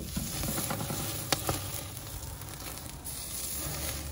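A sous-vide ribeye sizzling as it sears on a hot charcoal grill grate, with two sharp metal clicks from the tongs, one at the start and one just over a second in.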